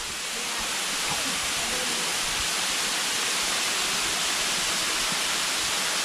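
Waterfall cascading over rock, heard up close as a steady, even rush of falling water; the falls are in strong spring flow.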